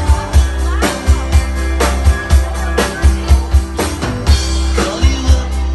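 Live rock band playing: a drum kit keeps a steady beat of about two strikes a second over bass guitar and electric guitar.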